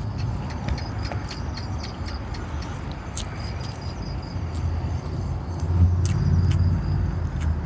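Crickets chirping in a thin high trill that comes and goes, over a steady low rumble, with scattered short clicks and smacks of someone eating.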